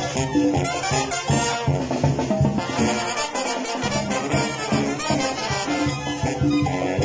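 Mexican banda playing live: trumpets and trombones playing the melody together over congas, snare drums and bass drum. The low end drops out briefly near the middle.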